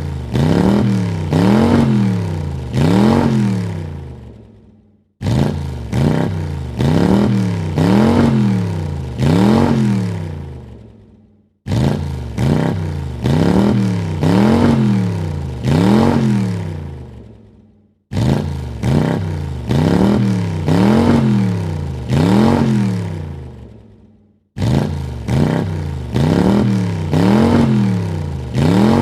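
Car engine revved in a few quick blips, the pitch rising and falling with each, then dying away. The same short recording repeats about every six seconds.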